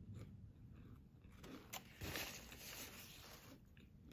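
Faint crunching and rustling of homemade granola, with a few light clicks and a louder crunchy stretch about two seconds in.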